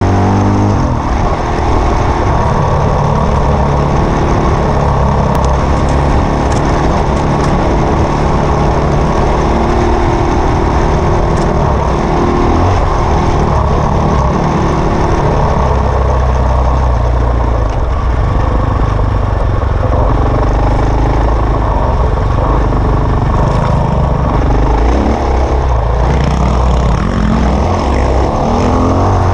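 Enduro dirt bike engine running under way, heard from on the bike, its pitch rising and falling as the throttle opens and closes.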